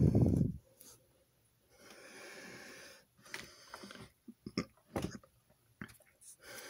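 Desk handling noise as a plastic model kit's instruction booklet and parts are set in place: a brief low rush of air or handling on the microphone at the start, a soft rustle about two seconds in, then several small scattered clicks and taps.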